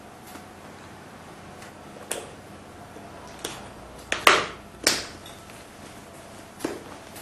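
Hands handling a Tonfly camera converter helmet: hard plastic clicks and knocks as the camera mount ring on its shell is fitted and the helmet is turned over. The clicks are scattered and single, with the loudest few bunched together a little past the middle, over a faint steady hiss.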